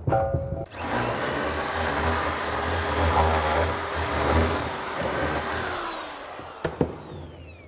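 Red corded electric drill boring a fixing-bolt hole into the wall: a short burst as it starts, then about five seconds of steady drilling, then the motor winds down in a falling whine once the trigger is released, with a sharp knock near the end.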